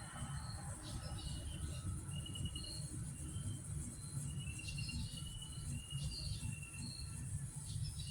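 Outdoor ambience of small animal calls: short high whistled chirps, some falling slightly in pitch, come about once a second. Beneath them runs a steady high-pitched buzz and a low rumble.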